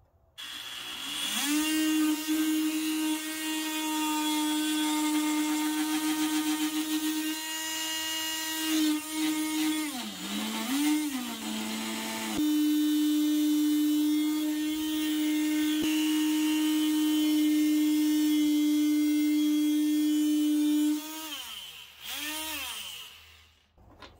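JobMax oscillating multi-tool running while its blade cuts through a strip of wood held in a vise. It makes a steady high buzz that dips in pitch twice around the middle, winds down near the end, then runs again briefly before stopping.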